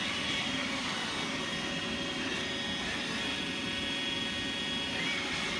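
iRobot Roomba 880 robot vacuum running with a steady whir of its motor and brushes, with faint steady high tones.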